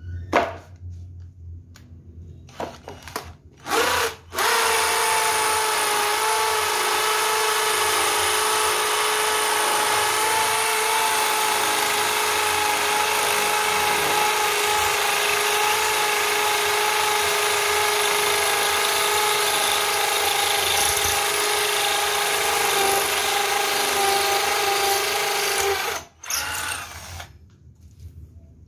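Converted cordless drill on an 18-volt Makita battery, a corded drill rebuilt for battery power, boring into a concrete paving block with a masonry bit. After a short trigger blip, the motor runs steadily at one speed for about twenty seconds, then stops.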